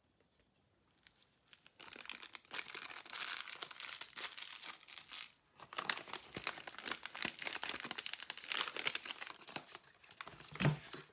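Plastic powder bags crinkling and rustling as they are handled close by, starting about two seconds in, with a short pause about halfway. There is a single sharp click near the end.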